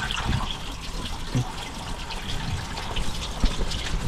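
Water poured from a plastic bucket into a 1966 Ford F350's radiator, splashing and trickling into the filler neck, with a few dull thumps. The radiator is leaking: it is losing more than is being put in.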